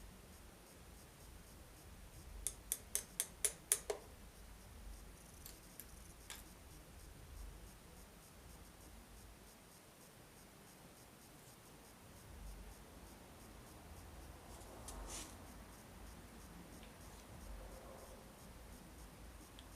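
Hand tools at work on a lawnmower while a part is being removed: a quick run of about seven sharp clicks, then a few scattered single clicks and knocks.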